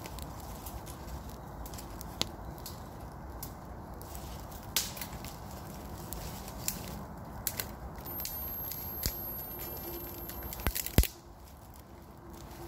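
A small fire of thin dry sticks burning with tall flames, crackling, with scattered sharp pops; the loudest pops come in a quick cluster near the end.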